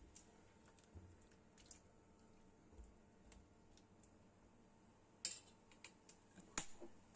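Near silence with scattered faint clicks, two sharper ones late on.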